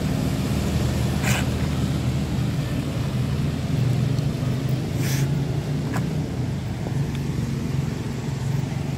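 Coach bus diesel engine running steadily as the bus pulls away, a low hum that eases slightly toward the end. Two brief hisses come about a second in and again about five seconds in.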